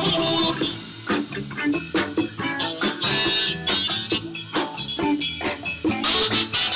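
A live band playing: electric guitars over drums and hand drums, keeping a steady beat.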